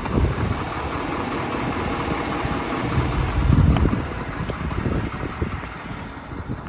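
An engine running steadily, getting louder for about a second around three seconds in.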